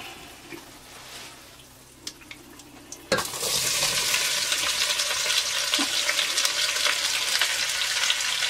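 Sliced onions tipped into hot oil with frying whole spices: a faint frying hiss, then about three seconds in a sudden loud sizzle that keeps going steadily.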